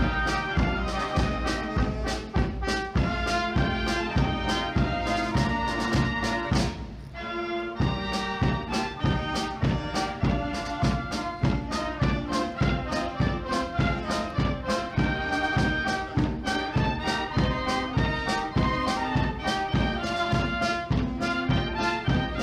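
Wind band playing live: brass, saxophones and other winds over a steady drum beat, with a brief dip about seven seconds in.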